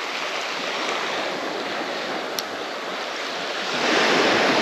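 Small waves breaking and washing up a sandy beach in a steady wash, growing louder near the end.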